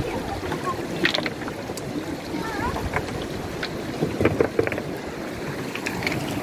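Steady rushing noise of the river over the stones, with a few sharp clicks of stones knocking together.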